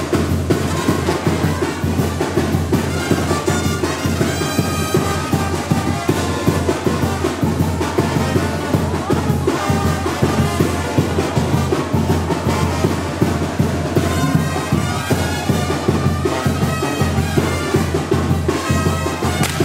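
Brass band music with trumpets and drums, playing steadily.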